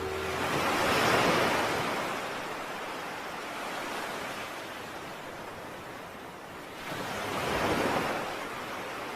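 Sea waves washing in, with two swells of surf, one about a second in and a second one near the end.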